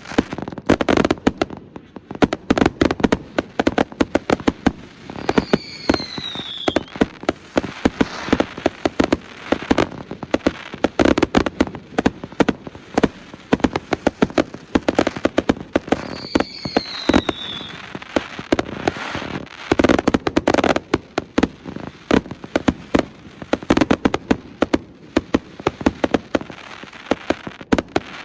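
Astroboy consumer fireworks going off in a dense, continuous barrage of rapid pops and crackles, with louder clusters of bangs. Two short falling whistles come through, about six seconds in and again about sixteen seconds in.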